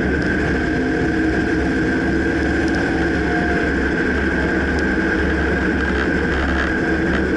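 2009 Dodge Ram pickup running, a steady low rumble with a constant high tone over it and a few faint clicks scattered throughout.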